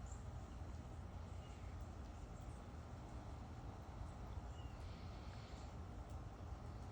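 Faint outdoor ambience: a steady low rumble, with a few brief, faint chirps from small birds.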